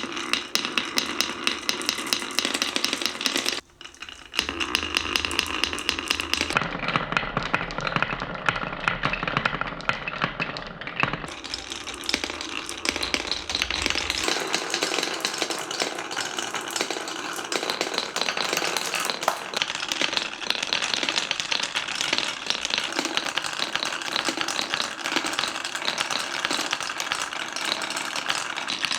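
Many glass marbles rolling and clattering down a wooden marble run, a dense stream of clicks and knocks on wood, with a brief break about three and a half seconds in.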